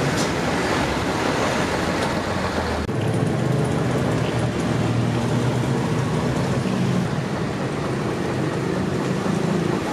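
Road-paving machinery running, a pneumatic-tyred road roller among it, with a steady low engine drone under loud noise. The sound drops briefly and changes character about three seconds in.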